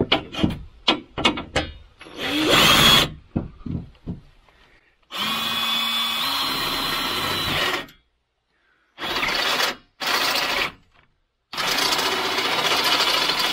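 Power drill drilling a hole, run in several bursts. There is a short burst about two seconds in, then a steady run of about three seconds that steps up in pitch partway, then three more runs near the end. Clicks and knocks of handling come at the start.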